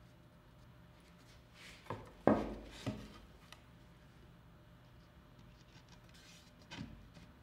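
Wooden panels being handled on a wooden workbench: a quick run of three knocks about two seconds in, the middle one the loudest, and another lighter knock near the end as the mitered panel is closed onto its biscuits.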